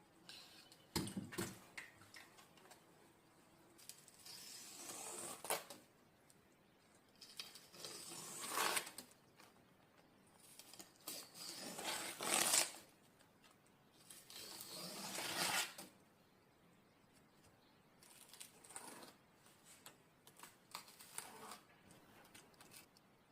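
Fibrous veins and spiny skin being ripped off vegetable stalks and leaves: a rasping tear heard several times, each pull building for a second or so and then snapping off sharply.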